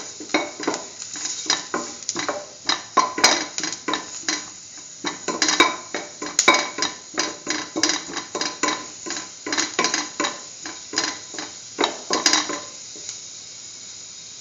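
A spoon stirring ginger pieces in hot oil in a stainless steel pan, knocking and scraping against the pan about two or three times a second over a faint sizzle. Near the end the stirring stops and only the faint sizzle remains.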